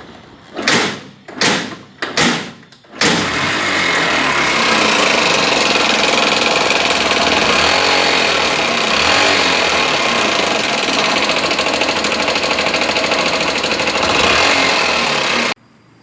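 Small single-cylinder motorcycle engine being cranked in four short bursts, then catching about three seconds in and running steadily with a loud top-end noise, which comes from a failed needle bearing in the exhaust rocker arm. The sound stops abruptly near the end.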